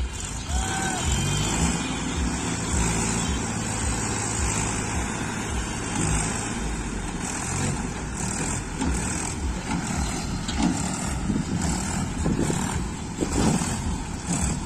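Diesel tractor engines running with a steady low note, growing rougher and more uneven in the second half, as tractors work to free a loaded trolley stuck in sand.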